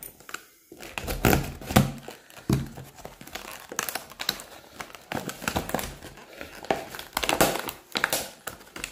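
Product packaging being crinkled and torn open by hand: an irregular run of crackles and rips as the stubborn, hard-to-open pack is pulled apart.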